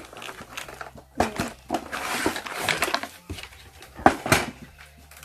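Toy box packaging being handled as a notebook is taken out: rustling with a few sharp clicks and knocks, the loudest pair about four seconds in.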